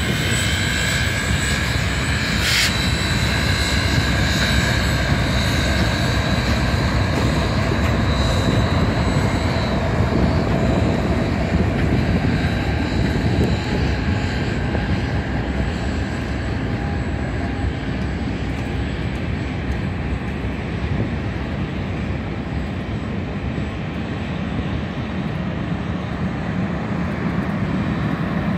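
Union Pacific excursion train rolling past at close range: a steady rumble of steel wheels on the rails as the auxiliary water tenders and a diesel locomotive go by, then the passenger cars. High ringing tones sound over the rumble and fade out after about ten seconds, with a brief sharp noise a couple of seconds in.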